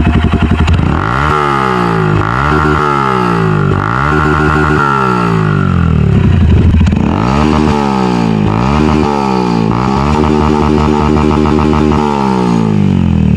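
Motorcycle engine with an aftermarket sport exhaust being blipped on the throttle, about once a second: each rev rises sharply and falls back toward idle. There is a short break in the revving about halfway through.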